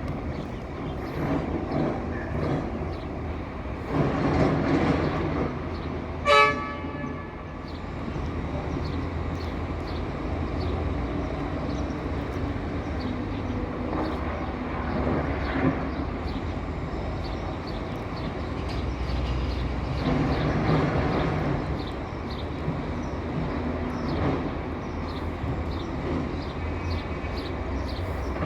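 Heavy diesel excavator engines running steadily, rising and falling under load in several surges. About six seconds in, a brief loud ringing tone.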